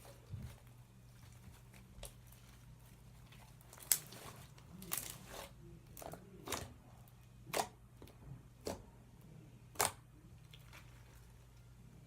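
Slime being mixed and squeezed by hand, giving short sticky pops and crackles at irregular intervals, about eight in all, over a faint steady low hum.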